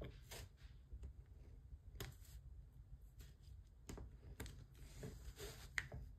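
Faint, irregular taps and clicks of a diamond painting drill pen picking resin drills from a plastic tray and pressing them onto the sticky canvas, about one click a second, the sharpest near the end, over a low steady hum.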